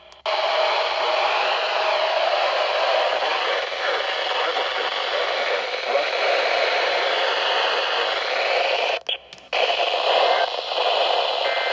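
Weather radio broadcast swamped by loud static hiss, with a faint voice buried under it. The signal cuts out briefly about nine seconds in and then comes back.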